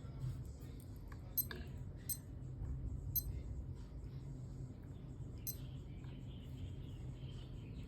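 Small handling sounds over a steady low hum: four sharp, brief clicks spaced a second or two apart.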